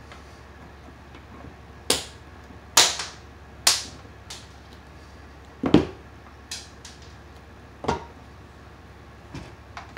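Wire strippers cutting and working the ends of 10-gauge copper conductors: a series of about nine sharp snaps and clicks at irregular intervals.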